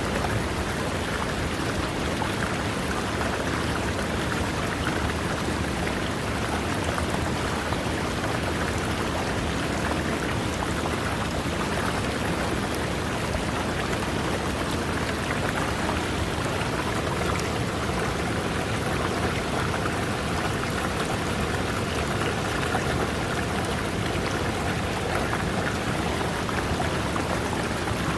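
River water running over rocks: a steady, even rushing and babbling.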